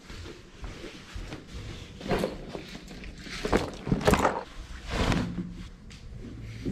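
Footsteps and the rustle and thud of a bag and jacket being handled and set down, with a handful of separate rustling knocks between about two and five seconds in.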